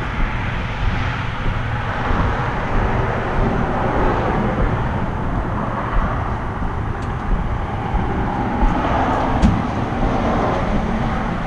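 Honda 100 dirt bike engine running at low speed as the bike rolls slowly across a lot, a steady mechanical drone with a few light knocks near the end.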